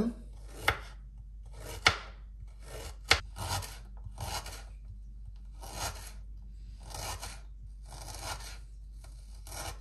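Kitchen knife cutting ginger root on a plastic chopping board: a series of rasping slicing strokes, about one a second, with a few sharp taps of the blade on the board in the first few seconds.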